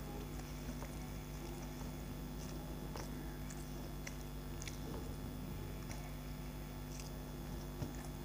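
A man eating rice by hand from a steel plate: chewing and mouth sounds with scattered soft clicks, over a steady low hum.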